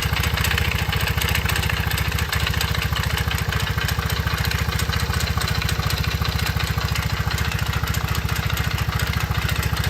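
Honda Monkey FI's small single-cylinder four-stroke engine idling steadily with an even, rapid pulse. The engine has new tappets and rocker arms, fitted to cure an abnormal engine noise.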